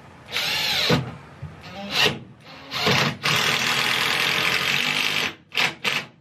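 Cordless drill driving screws through a timber noggin into a floor batten: a short run about half a second in, a brief blip, then a long run of about two seconds, ending with two quick pulses of the trigger.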